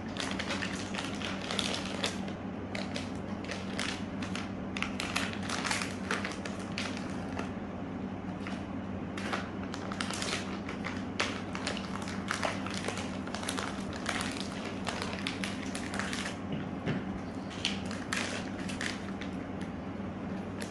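Plastic zipper bags crinkling and crackling irregularly as they are handled, clay being packed into one and taken out of another. A steady low hum runs underneath.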